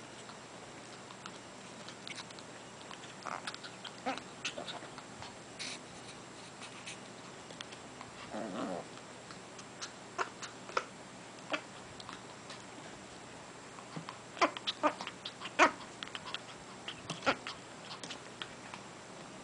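Two Japanese Chins mouth-wrestling in play: scattered sharp clicks and snaps, with a short low growl about eight seconds in. The loudest flurry of snaps comes later, a couple of seconds long.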